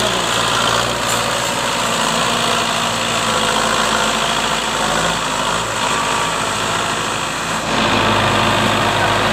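Belarus tractor's diesel engine running steadily as it pulls a heavily loaded sugarcane trolley, growing louder and deeper about eight seconds in.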